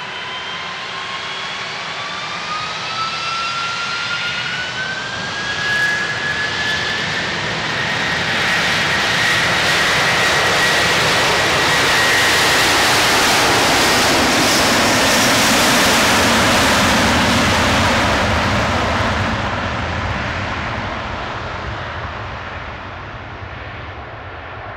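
Airbus A330 twin-jet airliner spooling up its engines for takeoff, their whine climbing steadily in pitch over the first several seconds. The jet noise then swells loud as the aircraft accelerates past on its takeoff roll, and fades as it rolls away down the runway.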